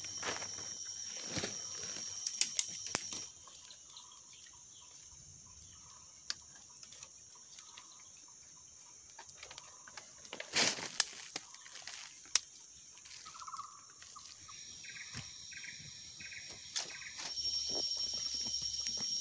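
Outdoor ambience with a steady high-pitched insect drone that fades out after about three seconds and comes back near the end. Scattered sharp clicks and knocks and a few short chirps sound in between.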